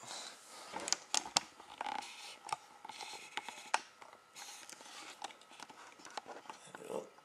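Small handling noises on a work surface: light scratching and rustling with scattered sharp clicks and taps, a cluster of them about a second in. A faint steady high hum runs underneath.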